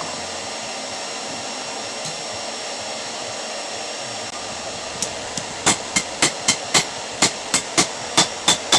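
Forge running with a steady rushing blow; about halfway through, a hammer starts striking hot steel on the anvil, about three ringing blows a second.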